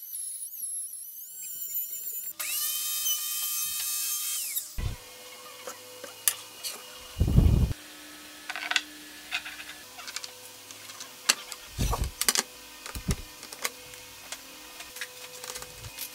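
Compact trim router running with a high whine as it cuts a slot in a wooden board, getting louder midway, then switched off about five seconds in. After that come scattered knocks and taps as the board and a T-track are handled, with one brief loud low noise a couple of seconds after the router stops.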